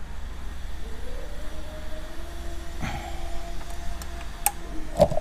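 A few sharp metallic clicks and knocks of hand work at the scooter's gear-oil bolt, the loudest near the end, over a steady low hum and a faint held tone in the background.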